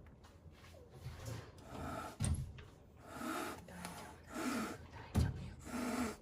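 Frightened young rescued kittens hissing in threat, about four breathy hisses with a low growl under them, and two sharp spitting thumps in between.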